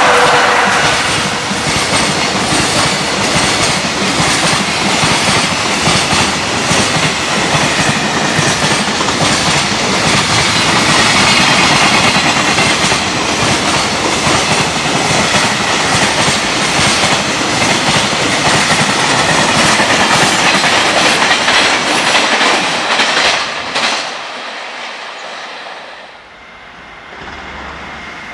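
Freight train passing at speed: its wagons' wheels clatter rhythmically over the rail joints in a dense, loud run of clicks. The clatter cuts off suddenly about 24 seconds in as the last wagon passes. A quieter rumble then rises again near the end.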